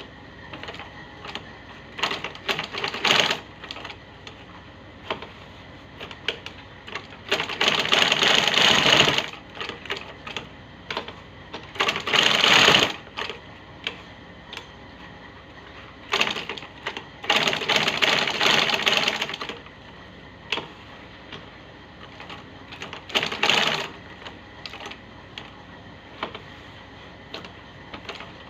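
Sewing machine stitching a leather shoe upper in five short runs, the longest about three seconds, with pauses and small clicks between as the work is turned and repositioned.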